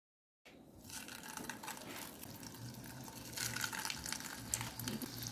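Breadcrumbed chicken burger patties sizzling and crackling in hot oil in a small pan. The sound starts about half a second in and grows louder about three seconds in.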